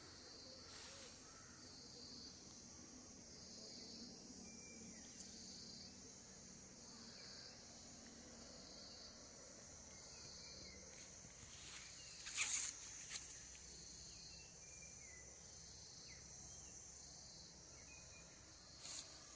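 Faint outdoor insect chorus, a steady high-pitched trilling that swells and fades about once a second, with a few faint short chirps. A brief sharp knock about twelve seconds in is the loudest moment.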